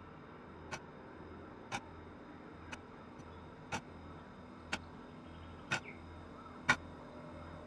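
Evenly spaced sharp ticks, about one a second, like a clock, over a faint steady hum.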